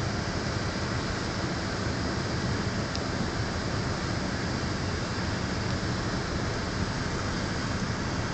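Steady cabin noise of a Subaru WRX with its turbocharged flat-four engine running: an even, unbroken rumble and hiss with no change in speed.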